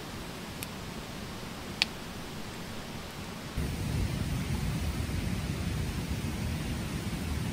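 Open wood fire burning in a stone fire ring, with a few crackles and one sharp pop about two seconds in. About halfway through, the sound turns into a louder, steady low rush.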